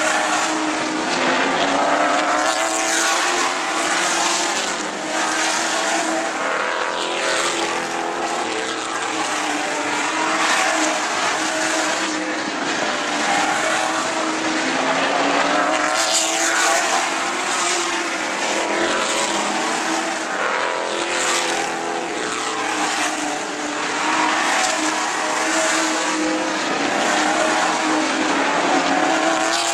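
Several sportsman stock car engines racing on an oval track. Their notes overlap and rise and fall in pitch again and again as the cars come past.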